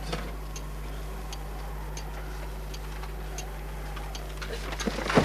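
Slow, steady ticking, a little under one and a half ticks a second, over a constant low hum. A voice comes in at the very end.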